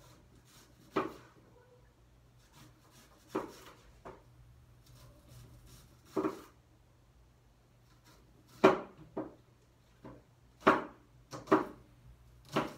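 Kitchen knife cutting a red onion on a cutting board: about ten separate knocks of the blade on the board, spaced out at first and coming quicker in the last few seconds.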